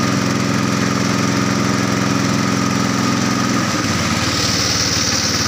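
Small motorboat engine running steadily close by; about four seconds in its pitch drops to a lower note.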